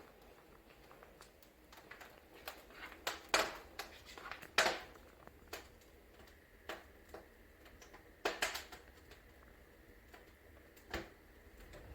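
Irregular clicks and knocks, a few of them louder, over a faint low hum.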